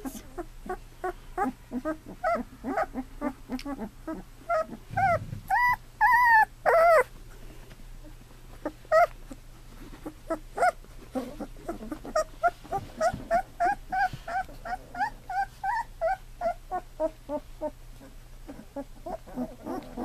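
Two-week-old golden retriever puppies whimpering and squeaking in many short, high calls, several a second. A few louder, longer cries come around six to seven seconds in.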